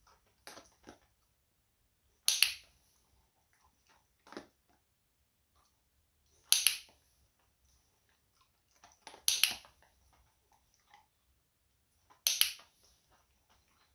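Dog-training clicker clicking four times, a few seconds apart, marking the dog's head turns during shaping, with a few fainter soft knocks between.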